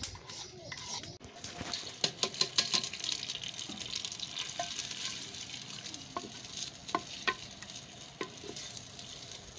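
Sliced onions sizzling in hot ghee in a clay pot, stirred with a wooden spoon that knocks against the pot now and then. The sizzle sets in about two seconds in.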